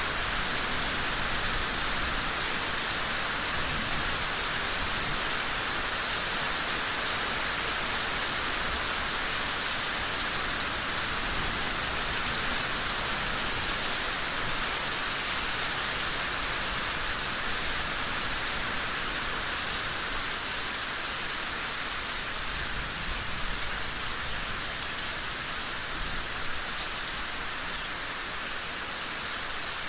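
Steady, heavy rain pouring down in a thunderstorm, an even hiss with no let-up.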